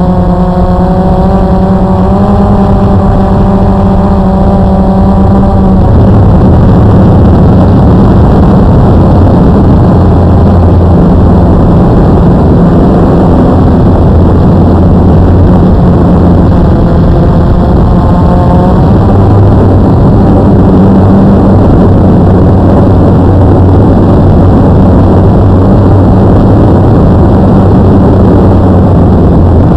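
Blade QX2 AP quadcopter's electric motors and propellers buzzing loudly in flight, heard from the aircraft itself, with a steady rush of air. The motor pitch wavers up and down for the first several seconds and again briefly about two-thirds of the way in.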